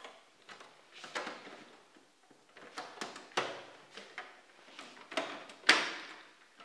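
Rear plastic casing of a Canon LBP-2900 laser printer being pried and pulled loose with a screwdriver: a run of irregular plastic clicks and knocks, the loudest about five and a half seconds in.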